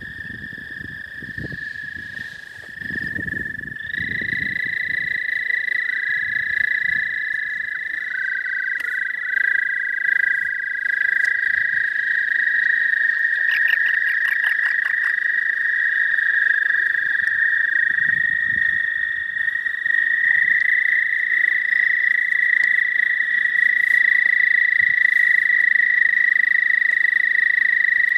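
Toads trilling: long, steady, high-pitched trills, two or three overlapping at slightly different pitches, one dropping out and another joining partway through. The uploader suspects eastern American toads.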